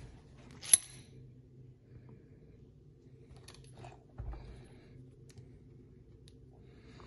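Handling of a brass padlock and bench vise: one sharp metallic click about a second in, a dull knock about four seconds in, and a few faint ticks of metal parts.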